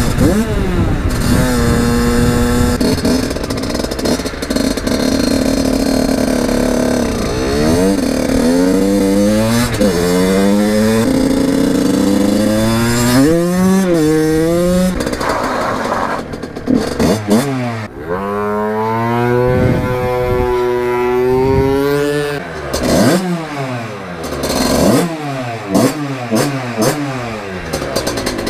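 Suzuki Valenti SM 50 supermotard's small two-stroke engine on the move: the revs climb and drop back again and again through the gears, ease off briefly past the middle, then rise and fall in shorter blips as it slows near the end.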